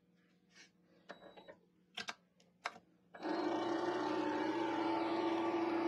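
A few light clicks and knocks, then about three seconds in a Vevor MX400 mini lathe starts up and its spindle and chuck run steadily with a constant hum and whine.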